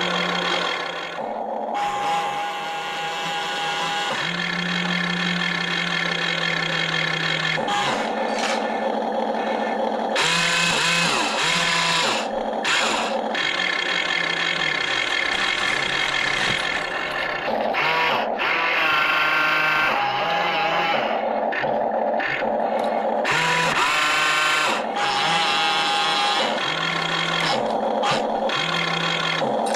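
Electric motors of a toy RC excavator whining, the pitch shifting and the sound stopping and starting every few seconds as different functions are driven.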